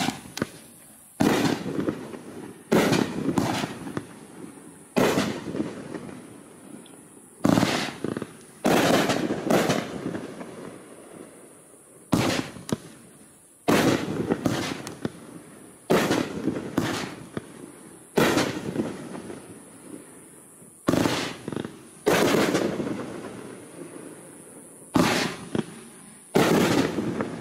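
A 500-gram consumer fireworks cake (Raccoon Fireworks 'What a Blast') firing shot after shot of aerial bursts: sharp bangs every second or two, each trailing off over a second or so.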